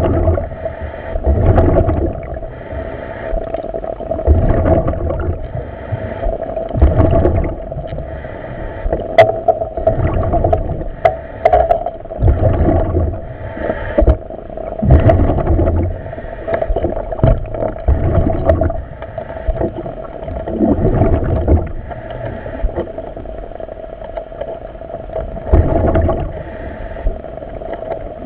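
A diver breathing in a surface-supplied diving helmet, heard over the dive radio: a swell of breath and exhaust bubbles every two to three seconds over a steady hum.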